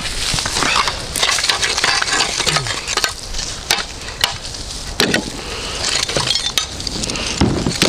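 Dug-up scrap metal being knocked to shake off caked dirt: irregular sharp knocks and metallic clinks over gritty scraping and crumbling soil.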